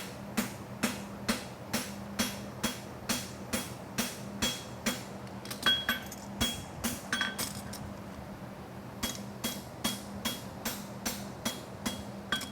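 Hand hammer striking a hot steel horseshoe on an anvil, about two ringing blows a second, while the masselotte toe clip of a hind bevel shoe is forged. The blows stop briefly about halfway through, then resume. A steady low hum runs underneath.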